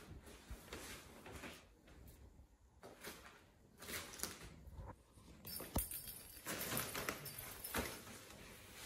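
Crinkly fabric cat tunnel rustling and swishing as kittens move inside it and paw at it, with a few soft knocks. The rustling grows busier and louder about halfway through.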